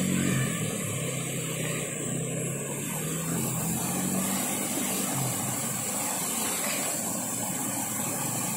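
A small motorcycle engine running under load as the bike is pushed up a muddy dirt track, for about the first three seconds. Then a steady rush of a shallow river flowing over rocks.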